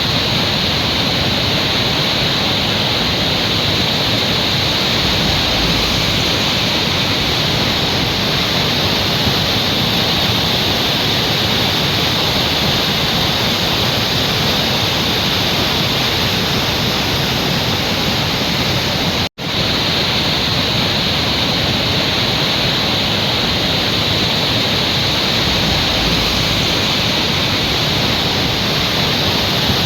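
Rain-swollen river or mountain stream rushing hard in a loud, steady roar of water, with a split-second gap about 19 seconds in.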